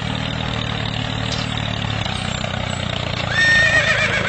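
Tractor engine running steadily at a low, even pitch. About three seconds in, a higher wavering tone joins over it.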